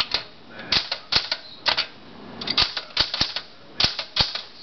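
1967 Smith-Corona Sterling portable typewriter being typed on: a string of sharp key strikes, two or three a second at an uneven pace.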